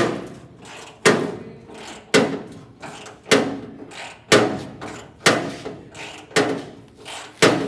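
Steady hammering: about one sharp blow a second, each dying away quickly.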